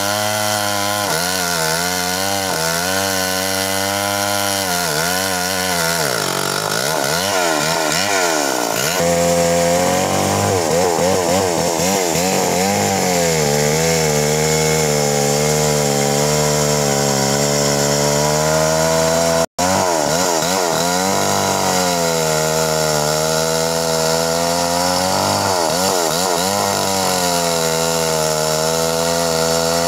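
Stihl MS 381 two-stroke chainsaw running hard as it rips lengthwise through a large red meranti log, the engine note dipping and rising over and over as the chain bogs and frees in the cut. The sound drops out for an instant about two-thirds of the way through.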